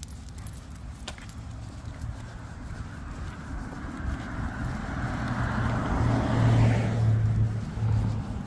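A car driving past on the street: its tyre and engine noise builds over several seconds, is loudest late on, then fades.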